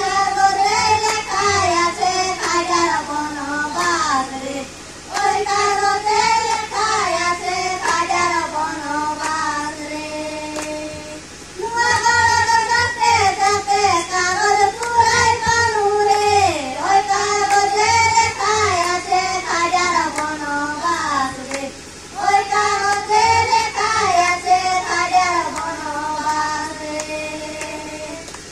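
A girl singing a song into a hand-held microphone, in sung phrases with held notes and a few short pauses.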